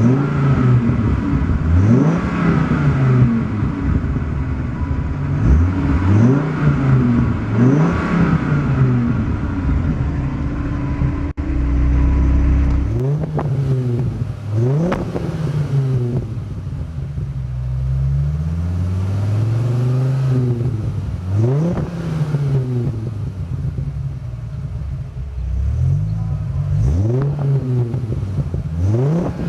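Dodge Viper RT/10's 8.0-litre V10 engine being revved again and again through its exhaust, each rev climbing in pitch and falling back, with a steadier stretch about halfway through.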